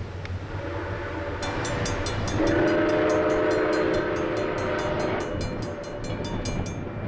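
Southern Railway 630 steam locomotive blowing its whistle, one long chord of about three seconds that starts a couple of seconds in, over the locomotive's fast, even exhaust beats of about six a second as it works towards the camera.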